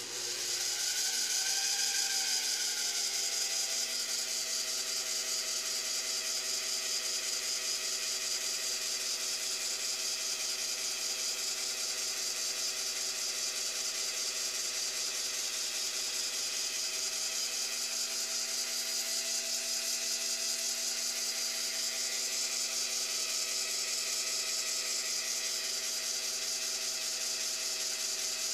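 Taig lathe motor and spindle spinning up over the first few seconds, then running steadily while a spring parting-off tool is fed into a mild steel bar, with a steady high hiss.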